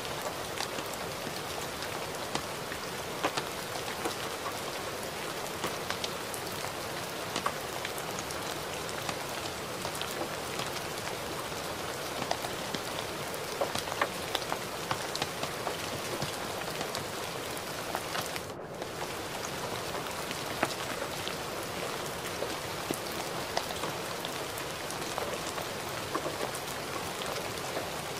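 Gentle, steady rain: an even hiss with many scattered drop ticks. The sound dips briefly about two-thirds of the way through.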